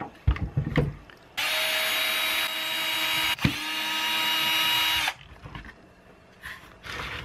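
Cordless drill-driver whirring steadily for about four seconds, backing screws out of the belt sander's housing. A click about three and a half seconds in, after which the pitch dips briefly and settles.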